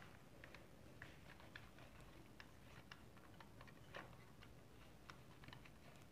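Faint, irregular plastic clicks from a Dell QuietKey SK-8000 keyboard being handled, its keys and plastic parts clicking about two or three times a second, with one louder click about four seconds in.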